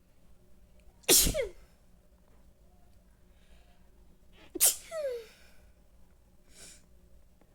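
A person sneezes twice, about three and a half seconds apart. Each sneeze is loud and sudden and ends in a voiced cry that falls in pitch.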